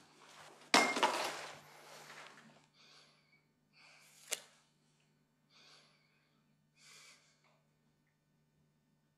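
A paintbrush rubbing across canvas, then a man's soft breaths, several short ones about a second apart, with one sharp tick a little after the middle.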